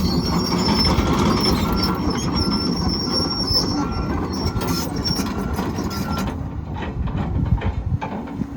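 Volvo EC220E track excavator travelling on its steel tracks, which clank and squeal over its diesel engine, with the travel alarm beeping about twice a second. The travel and the beeping stop about six seconds in, and the engine settles to a steady run near the end.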